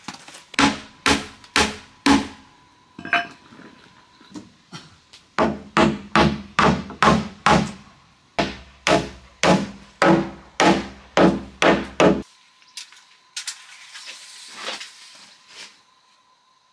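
Hammer blows on wood in a steady rhythm: four strikes early on, a pause, then a long run of about two to three blows a second that stops suddenly.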